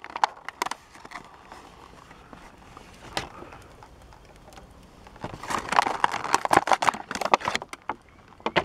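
Clear plastic blister pack of an action figure crinkling and crackling as it is torn open and the figure pulled out by hand. A few sharp clicks at first, a quieter stretch, then dense crinkling from about five seconds in to nearly eight.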